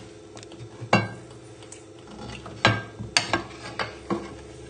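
A spoon scraping and knocking against a pan while curry sauce and chicken are spooned out: one knock about a second in, then a cluster of clinks and scrapes in the second half.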